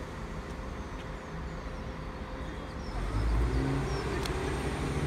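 Diesel multiple unit's underfloor diesel engines idling at the platform, then opening up about three seconds in as the train starts to pull away. Faint bird chirps sound over the top.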